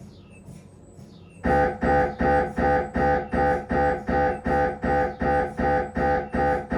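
Siemens Magnetom Avanto MRI scanner's gradient coils during a head scan. The first second and a half is quieter, with faint chirps. Then a new sequence starts with a loud, pitched buzzing pulse that repeats evenly, nearly three times a second.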